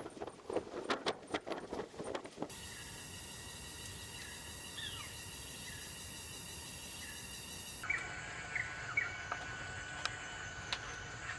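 Tropical forest ambience: a steady insect drone with a few short bird calls, which changes abruptly twice. It opens with a couple of seconds of irregular rattling and knocking.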